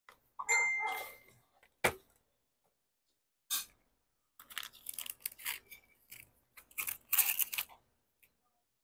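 Crinkly plastic snack wrappers rustling and crackling as they are handled and pulled at, in short bursts, with a sharp click about two seconds in.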